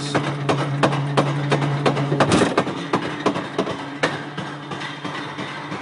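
Portable roller coaster train running on its track, its wheels clicking and rattling about four times a second over a steady hum. About two seconds in the hum shifts higher, and the clicks slow, spread out and fade.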